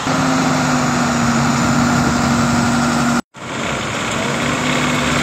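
Engine idling steadily. It cuts out abruptly for a split second about three seconds in, then runs on.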